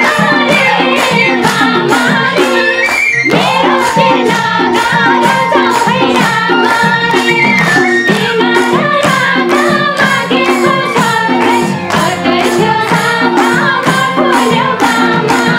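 Live Nepali dohori folk music: madal hand drums beat a brisk repeating rhythm under a bansuri flute melody with slides, and hands clap in time with the beat.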